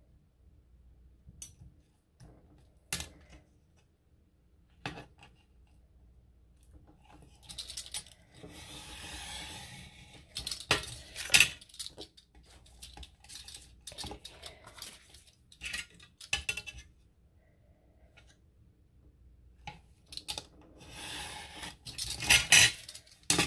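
Craft tools and paper handled on a tabletop: scattered clicks and taps of small hard objects being picked up and set down. A few seconds of rubbing or sliding come about eight seconds in, and a quick run of clicks comes near the end.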